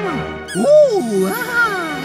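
Light background music, with a cartoon character's wordless, pleased vocal sounds over it from about halfway in, the pitch swooping up and then down twice.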